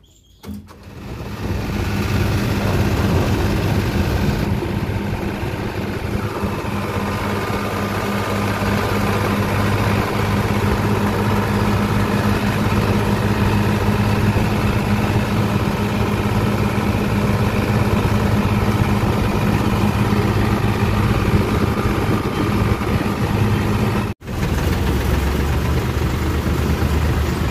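Diesel tractor engine starting about a second in, then running steadily as the tractor drives. It cuts out for an instant near the end and comes back at a lower pitch.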